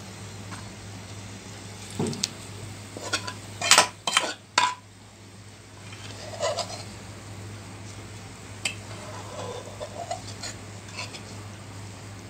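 Metal spoon scraping and clinking against a metal pan as fried onions are scooped out of the oil. The loudest is a quick cluster of clinks about four seconds in, with scattered knocks before and after, over a low steady hum.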